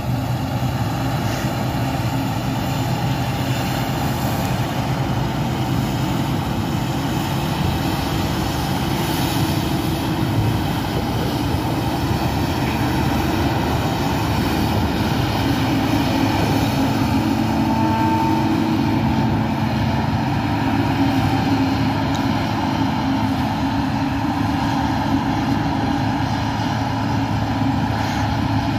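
Claas Lexion 550 combine harvester threshing wheat: its engine and threshing machinery make a steady drone that gets a little louder about halfway through as the machine passes close by.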